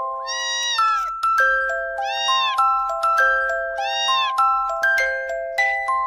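A kitten meowing three times, each a short call that rises and falls in pitch, over light plinking mallet-percussion background music.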